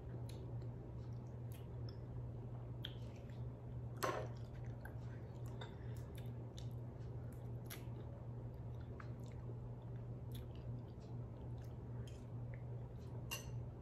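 A person chewing a mouthful of food, with soft mouth sounds and scattered light clicks of a spoon, one sharper click about four seconds in. A steady low hum runs underneath.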